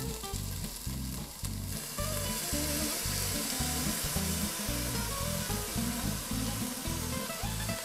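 Browned beef chunks tipped into a hot pot of sautéed onion, celery, carrot and garlic, sizzling steadily, louder from about two seconds in, with stirring in the pot. Soft background music plays underneath.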